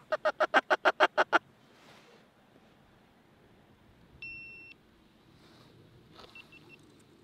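Duck call blown in a quick run of about nine loud quacks, a mallard-style hail to the flock overhead. About four seconds in comes a short, steady, high beep.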